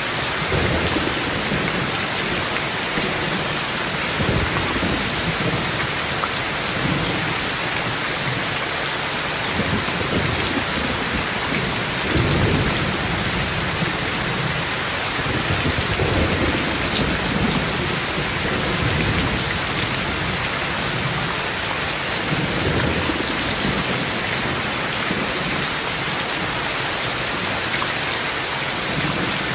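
Steady rain with rolls of thunder rumbling low underneath, the loudest about twelve seconds in.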